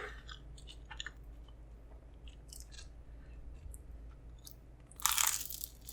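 Close-miked chewing with small wet mouth clicks, then a louder crunchy bite about five seconds in.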